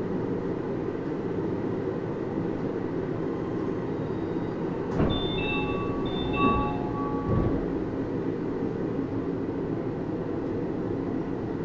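Interior running noise of a Hitachi-built Disney Resort Line Series 10 (Type-X) straddle-beam monorail car on its rubber tyres: a steady low rumble. A few thumps come about five, six and a half and seven and a half seconds in.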